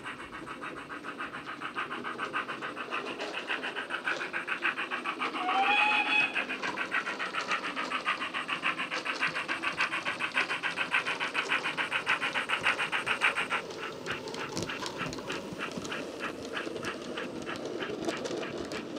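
Recorded steam sound of 15XX pannier tank No. 1501 played from a model locomotive's DCC sound decoder through its small built-in speaker: a rapid, even exhaust beat, with a short whistle about six seconds in. About two-thirds of the way through, the beat drops to a quieter, softer rhythm.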